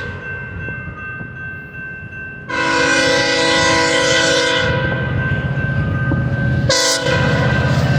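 Sounder commuter train's multi-chime locomotive horn. It sounds faintly at first, then a loud long blast begins about two and a half seconds in, joined by the low rumble of the train from about halfway. There is a brief break near the end before the horn sounds again.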